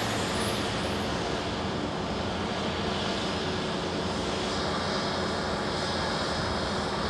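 Jet engines of an Airbus A320neo running steadily at taxi power, heard as an even, continuous rushing with a faint steady hum, and no sudden events.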